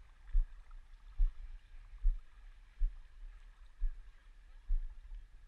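Gentle water slapping at the surface, heard as low, muffled thuds about once a second over a faint wash of water.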